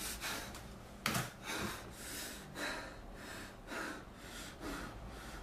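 A man breathing in short, noisy gasps and sniffs, about one every half second, his hands pressed over his nose and mouth.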